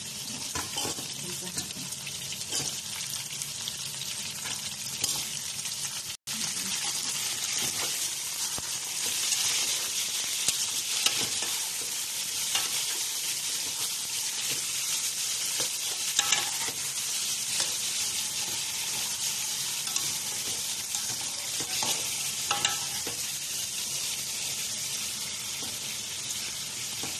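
Raw chicken pieces sizzling in hot oil with sautéed onion and garlic in a metal pot, a steady frying hiss, while a metal spoon stirs them with occasional scrapes and clinks against the pot.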